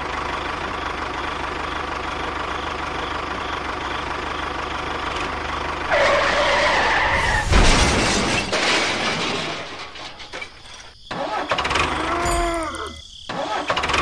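An engine-like running sound, steady for about six seconds. It then gives way to a louder, changing jumble of sounds, with a few tones that rise and fall near the end.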